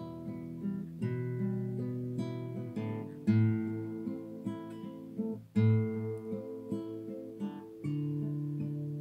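Background music played on an acoustic guitar: gentle plucked notes with a new chord struck about every two seconds.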